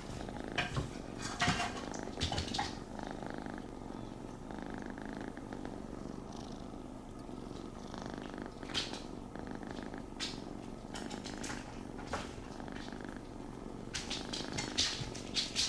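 A kitten purring steadily, close up, with scattered short clicks and rustles that come more often near the end.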